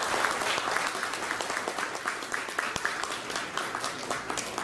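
Audience applauding, many hands clapping at once, thinning out gradually toward the end.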